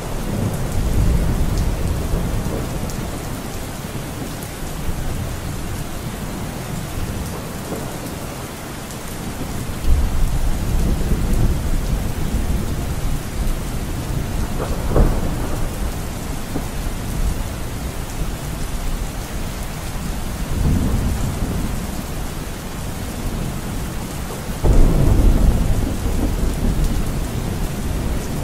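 Steady rain with low rolls of thunder that swell up several times, the strongest about ten seconds in and near the end.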